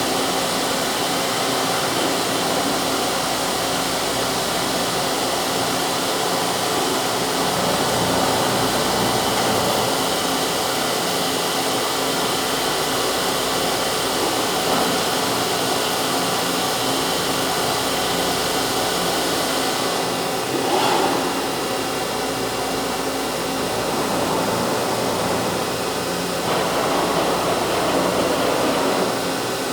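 CNC machine running, a steady mechanical whir with a constant hum, its sound shifting briefly about 21 seconds in and again near 26.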